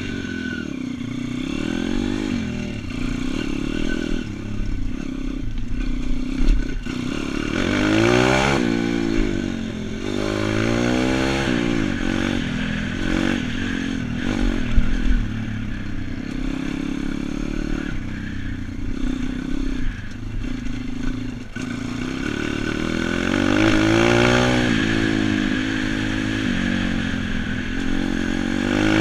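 YX pit bike's four-stroke single-cylinder engine ridden along a gravel track, revving up and easing off several times through the gears, with occasional clatter and knocks.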